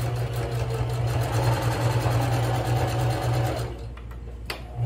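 Sewing machine running at a steady pace, stitching a straight seam through folded fabric with a fast, even stitch rhythm. It stops for under a second near the end, with a single click in the gap, then starts stitching again.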